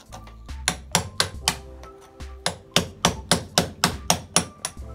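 Hammer striking a chisel to chip concrete out of a wall, a short run of sharp blows, a pause, then a quicker run of about five blows a second.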